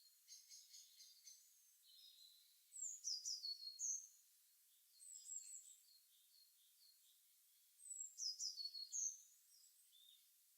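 Songbirds singing in the morning. A loud phrase of quick, high notes stepping down in pitch comes twice, a few seconds apart, over fainter chirps from other birds.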